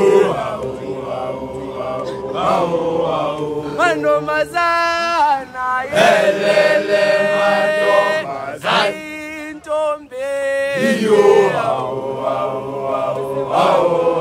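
A group of schoolboys chanting a song together, many voices holding long notes that slide up and down in pitch, in phrases with short breaks between them.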